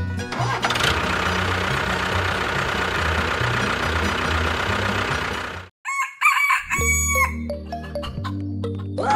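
Busy background sound with a steady low pattern cuts off suddenly a little past halfway. A rooster then crows, a call that rises, holds and falls, over a low steady hum.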